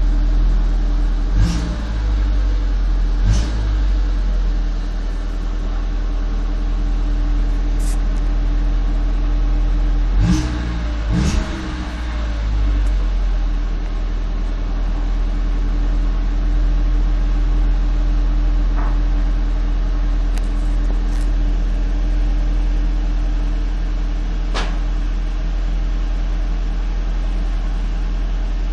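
Volkswagen Passat 1.8T turbocharged four-cylinder engine running cold with a steady hum. A few sharp knocks and clicks break through it, the strongest about one and a half and three seconds in and a pair about ten to eleven seconds in. The owner takes this for the strange cold-engine crunching or rattling that sounds like a burned flexible exhaust pipe, which he places at the back of the engine near the turbo or combi valve.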